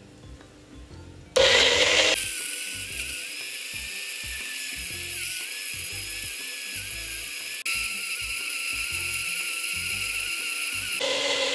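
Small bullet-style personal blender starting up about a second and a half in and running with a high, steady whine as it purees chunks of apple, banana, mango and blueberries. Its whine steps lower about eight seconds in as the fruit turns to a smooth puree.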